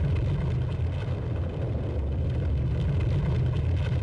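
Eyjafjallajökull's ash eruption as a steady, deep rumble, with faint scattered crackles over it.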